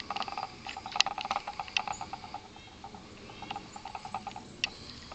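An animal's rapid chattering call, trains of short repeated notes that thin out in the second half, with a few sharp clicks.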